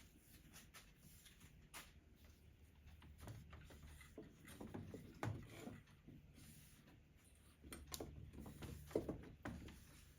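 Near silence with a low steady hum and a few faint scattered clicks and light knocks, the handling noises of fitting a metal conduit clamp over a cable.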